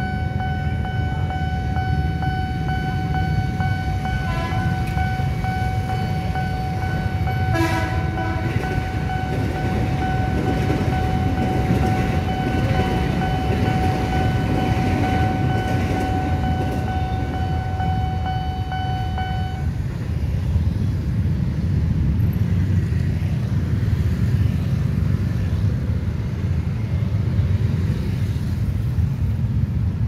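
KRL electric commuter train passing a level crossing: a steady high warning tone sounds until about two-thirds of the way through, with two short horn blasts about 4 and 8 seconds in, over the low rumble of the train and waiting traffic.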